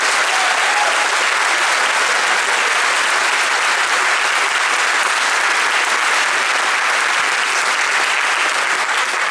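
Loud, sustained applause from a large audience of delegates.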